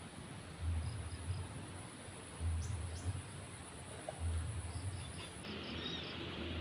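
Outdoor ambience: a steady, high-pitched insect drone with a few short, faint bird chirps, over low rumbles that come about every second or two.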